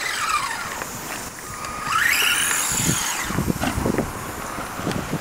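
Small electric RC stunt car's motor whining, rising and falling in pitch as it speeds up and slows, with a run of knocks about three to four seconds in as the car bumps over the ramp.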